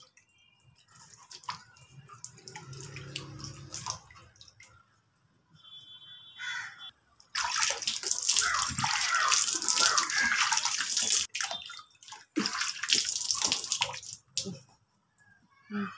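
Water splashed from cupped hands onto the face and rubbed over the skin, washing off a dried face pack. The splashing is soft at first, then loud in two long stretches, from about seven seconds in and again around thirteen seconds.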